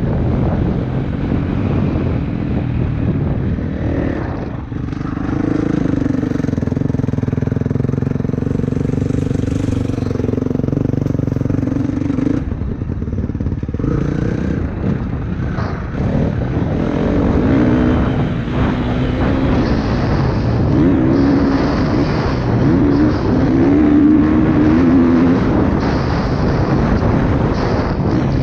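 Motocross motorcycle engines running hard, the engine note rising and falling as the throttle opens and closes. From about 20 seconds in, one engine note wavers quickly up and down.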